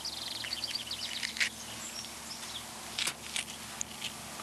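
Quiet outdoor background with a rapid run of high chirps in the first second, a steady low hum, and a few faint clicks from a paring knife working around a peach pit.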